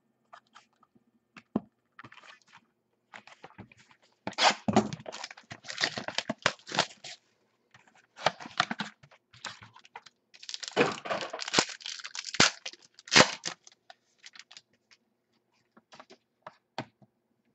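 Trading-card packs and wrappers being handled and torn open: two runs of tearing and crinkling plastic a few seconds long, with sharp clicks and rustles of cards between them.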